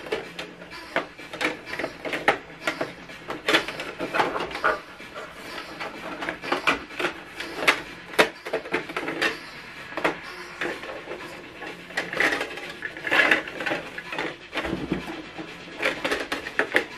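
Paper being handled in the plastic input tray of an HP DeskJet 3750 printer: irregular rustling, rubbing and light clicks of paper sheets and plastic parts.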